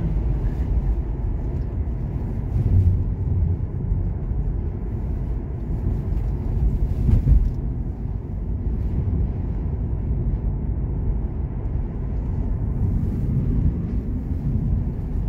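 Steady low rumble of a car's tyres and engine heard from inside the cabin while driving, with a brief knock about seven seconds in.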